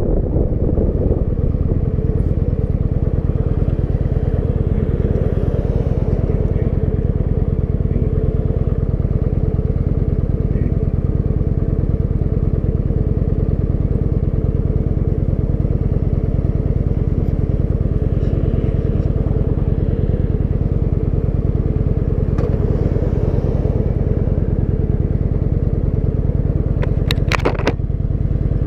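Kawasaki Vulcan 900's V-twin engine running steadily. A few sharp clicks come near the end.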